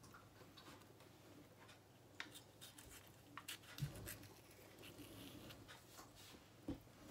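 Faint scraping and slicing of a kitchen knife cutting into a tomato held in the hand, with scattered small clicks and a couple of soft knocks, one about four seconds in and one near the end.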